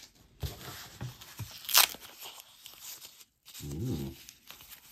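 Handling noise from a plastic jewelry bag: a few short, sharp crinkling and tearing sounds, the loudest about two seconds in. A man gives a short hum near the end.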